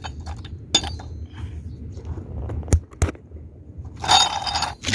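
Sharp metal clinks of tools on an EGR valve, with a short scrape about four seconds in, as heavy carbon buildup is cleaned off the valve.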